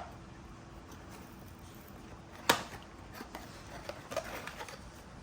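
A blind-box package being opened by hand: one sharp click about two and a half seconds in, followed by soft rustling and small clicks.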